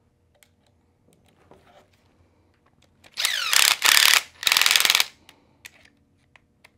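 A 2.5 mm driver running small screws into the plastic front fender of an RC motorcycle: three short bursts of mechanical ratcheting clicks about three to five seconds in, after some faint handling noises.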